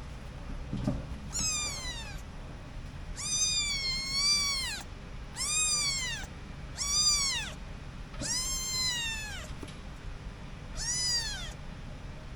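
A kitten meowing six times, high-pitched calls that each rise and then fall in pitch; the second and fifth are the longest, over a second each.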